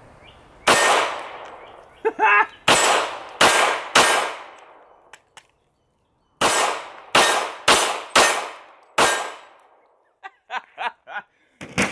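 Hi-Point .40 S&W pistol firing about nine shots in two quick strings with a short pause between, each shot trailing off. The gun still fires and cycles despite having taken a bullet to the chamber and a bent slide.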